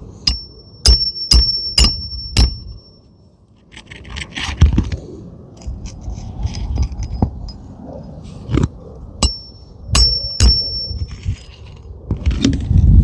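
Hammer driving roofing nails back into asphalt shingles: a quick run of about five ringing metallic strikes, then scraping and shuffling on the roof, then another few ringing strikes near the end.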